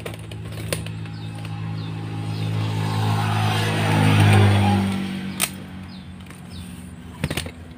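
A motor vehicle passing by, its engine hum growing louder, peaking about four seconds in, then dropping slightly in pitch and fading. Faint bird chirps and a couple of sharp clicks near the end.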